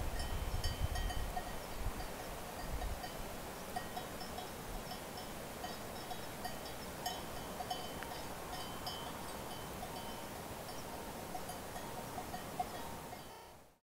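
Distant bells of grazing livestock clinking irregularly across an alpine pasture. The sound fades out near the end.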